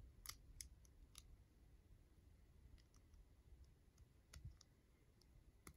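Faint clicks of plastic LEGO bricks being handled and pressed together. There is a quick cluster of four sharper clicks in the first second, then scattered lighter clicks.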